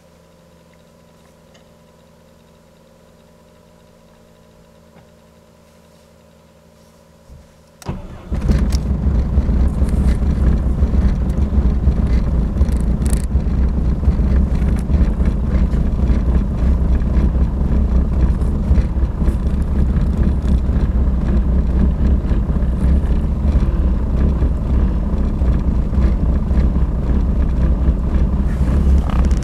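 Mercedes W202 C220d's 2.2-litre four-cylinder diesel engine on a cold start: a faint steady hum, then it cranks briefly and catches about eight seconds in, running steadily after that. The hard start is the sign of air getting into the fuel at worn O-rings on the fuel filter's quick-connect fittings.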